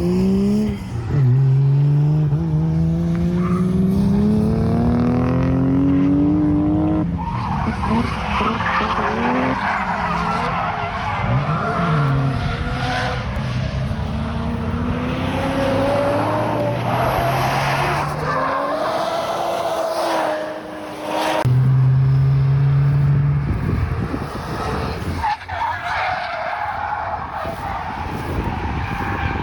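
Drift car driven hard: the engine revs climb, with a gear change about a second in, then the tyres squeal and skid for a long stretch as the car slides, with the engine note rising and falling under it. Near the end the revs are held steady for a moment before the tyres go again.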